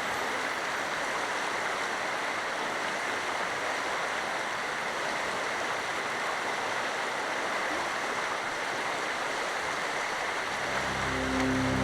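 Stream water rushing steadily, with music fading in near the end.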